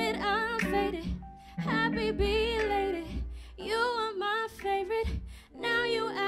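A woman sings into a handheld microphone with an acoustic guitar behind her. Her notes waver and slide, in phrases that break off briefly about every two seconds.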